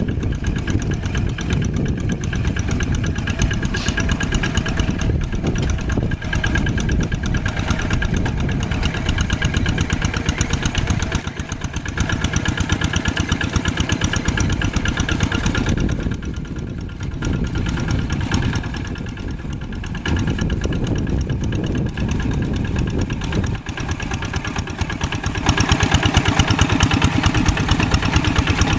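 Old tractor engine running with a steady rapid firing beat. It eases off a little a couple of times and gets louder near the end.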